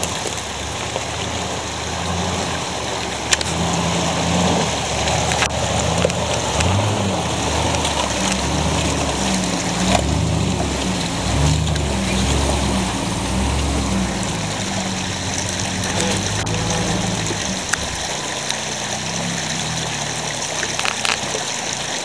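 A 4x4 SUV's engine working at crawling speed over a rocky stream bed, its note rising and falling with the throttle, over the steady rush of shallow running water. The engine fades out about 18 seconds in, leaving the water.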